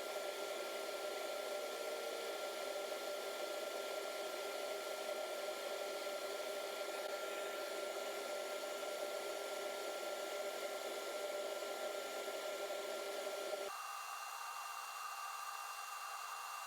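Wood lathe running steadily with a stitched cloth buffing mop spinning on its buffing tree, a steady whirring hum with a few constant tones. About three-quarters of the way through the sound changes abruptly to a slightly quieter, higher hum.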